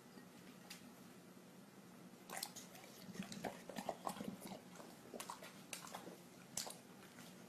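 English bulldog chewing and smacking its mouth: a faint run of short, irregular clicks from about two seconds in, thickest a second or so later.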